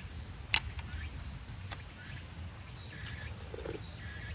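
Forest insects chirping in short, evenly repeated high pulses, with one sharp click of chopsticks on tableware about half a second in.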